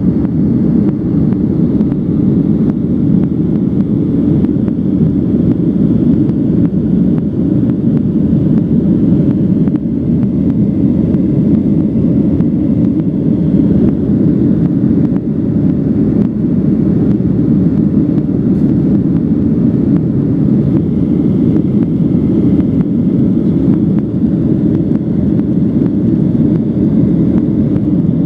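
Steady cabin drone of a Boeing 737-900 under way: CFM56 jet engine noise and rushing air, concentrated low, with a faint thin high tone above it.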